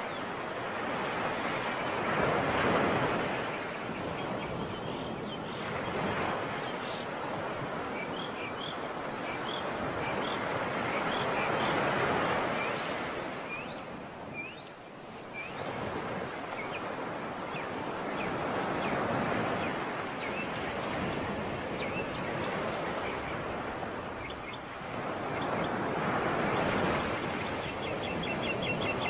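Sea waves washing onto the shore, swelling and falling back every several seconds, with faint high bird chirps over the surf.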